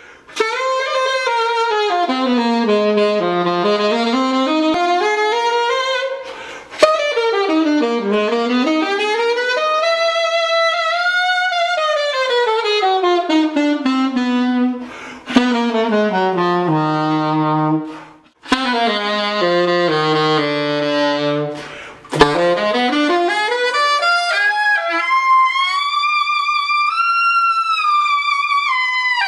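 Solo saxophone playing a slow melody in long phrases that sweep down into the low register and back up, with four short breaks between phrases. Near the end it climbs to high held notes.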